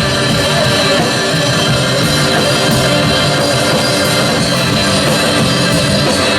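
Rock music: electric guitar over a drum kit, played loud and steady.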